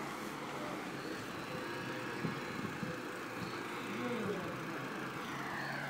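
Steady road and traffic noise heard while moving along a street, with a few muffled, unintelligible bits of voice about four seconds in.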